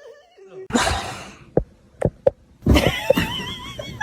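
A short rustling burst and a few sharp clicks, then a dog's wavering, warbling cry near the end.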